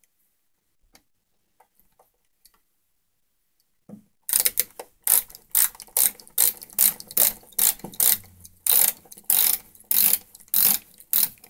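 Ratchet screwdriver clicking in quick bursts, about two to three a second, as it is worked back and forth on a screw of a wall light switch. The clicking starts about four seconds in, after a few faint ticks.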